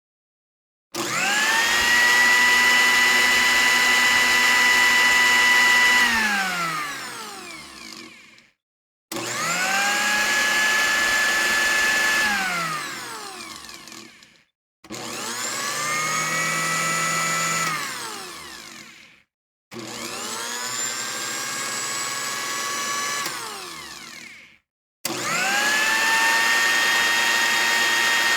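Electric kitchen blender motor switched on and off five times. Each time it whines up quickly to a steady pitch, runs for a few seconds, then winds down as the blades coast to a stop. The running pitch differs a little from one run to the next.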